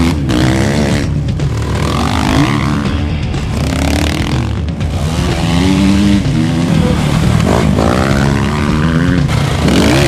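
Off-road motorcycle engines revving hard as the bikes accelerate past on a dirt track, the pitch rising and falling again and again.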